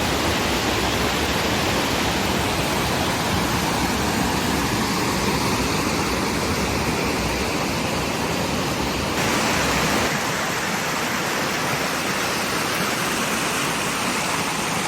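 Waterfall rushing, a steady dense wash of falling water. About nine seconds in the sound turns brighter and loses its deep low rumble.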